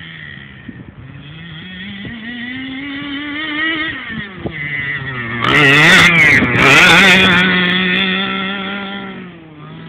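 26cc two-stroke petrol engine of a large-scale FG radio-controlled monster truck, fitted with a home-made tuned exhaust pipe, running under throttle as the truck drives. The engine note climbs, drops back, then swells to its loudest and harshest about two-thirds of the way through before settling to a steady lower note and fading near the end.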